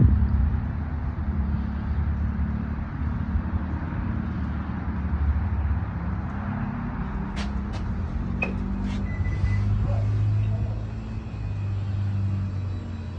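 Low, steady rumble of a running engine. About seven to nine seconds in come a few sharp clicks and then a short high tone as a shop's glass entry door is opened.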